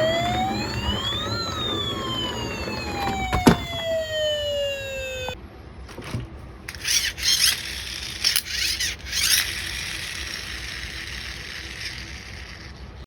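Electronic siren-like wail from a toy: one slow rise and fall in pitch that cuts off suddenly about five seconds in. A high, hissy whirring with clicks and rattles follows.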